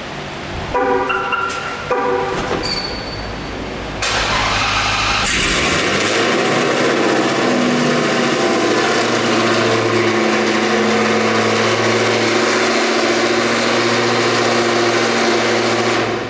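A few short dashboard chimes, then a Dodge Hellcat Redeye's supercharged 6.2-litre HEMI V8 starts suddenly about four seconds in and settles into a steady idle.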